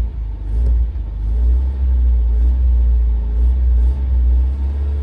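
Toyota Carina's engine running after a cold start with a deep, steady low rumble.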